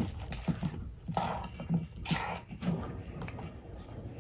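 Thick, sticky laundry-detergent slime being stirred in a bowl, a run of irregular short strokes.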